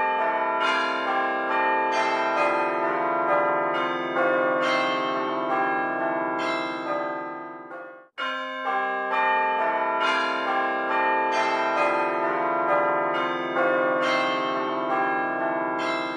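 Background music of bell-like chimes: a short tune that breaks off just after eight seconds in and starts over.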